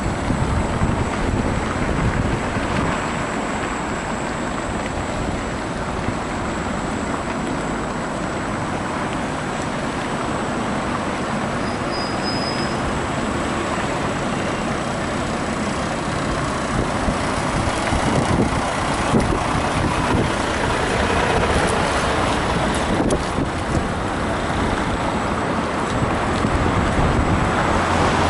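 Road traffic noise mixed with wind rushing over the microphone of a moving electric unicycle rider, a steady rumble and hiss that grows a little louder near the end.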